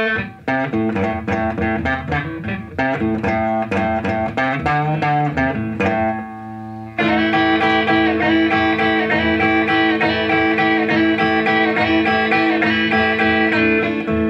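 Solo electric blues guitar with no singing: single picked notes and short runs, then from about seven seconds in a steady, repeated ringing chord figure.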